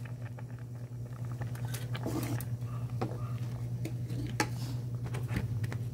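A metal ladle stirring mung bean soup in a steel pot, with a few light clinks against the pot over a steady low hum.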